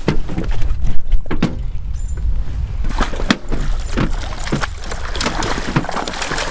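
Coho salmon thrashing and splashing in a landing net at the water's surface: repeated sharp splashes that thicken into continuous splashing in the second half.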